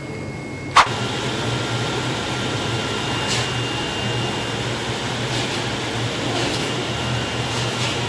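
Flatbed digital cutting table running while its knife head cuts out a large printed vinyl sticker: a steady machine hum with a pulsing low rumble and an occasional soft swish. A single sharp click about a second in.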